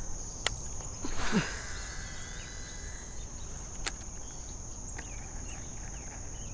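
A baitcasting rod cast: a swish about a second in and the Shimano Antares DC reel's spool whirring as line pays out, fading over the next two seconds, with sharp clicks from the reel once before the cast and again near four seconds in. A steady high insect buzz runs underneath.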